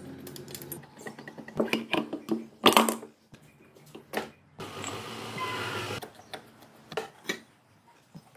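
Hand work in a workshop: a run of irregular clicks and knocks, the loudest about three seconds in, and a steady hiss lasting about a second and a half midway.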